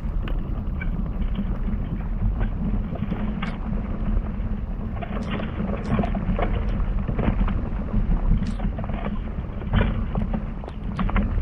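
Wind buffeting the microphone in a steady low rumble, with scattered light taps and clicks on top.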